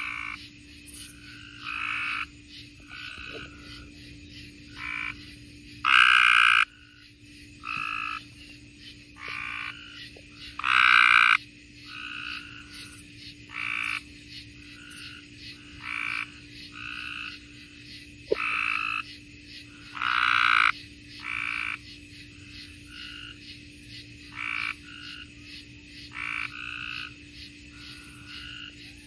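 Tree frogs calling: short croaks repeated roughly every second or two, some much louder than others.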